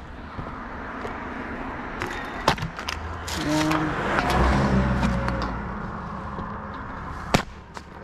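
A car passing by on the road, its tyre and engine noise swelling to a peak in the middle and fading away. Two sharp clicks, one before the car passes and one near the end.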